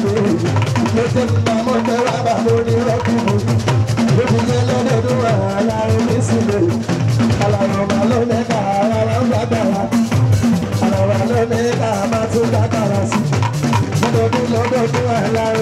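Live fuji band music: steady drums and percussion with a man singing lead into a microphone over them.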